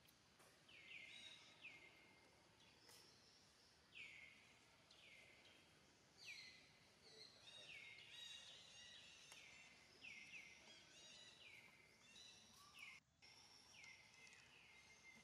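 Faint outdoor ambience with birds calling: short, falling chirps in twos and threes, repeating every couple of seconds.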